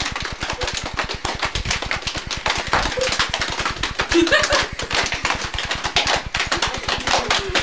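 Hands slapping out a rapid, even beat of about ten strokes a second, with brief bits of girls' voices over it.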